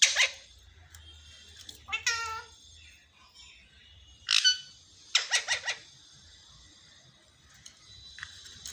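Pet parrot calling: short, high, screechy calls with bending pitch about every two seconds, the last a quick run of several notes.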